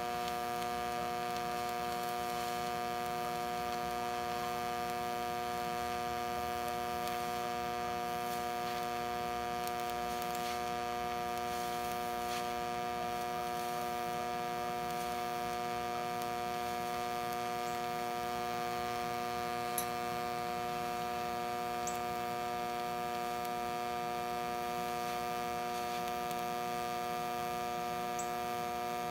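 Hobart TIG welder running a continuous arc: a steady electrical hum, with a few faint ticks.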